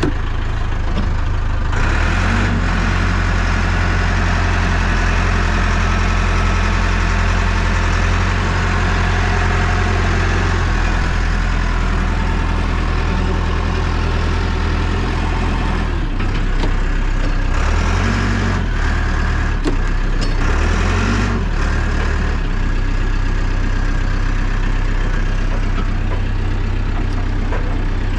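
Caterpillar 420D backhoe's diesel engine running steadily. Its note rises about two seconds in and dips and recovers briefly twice in the second half before settling.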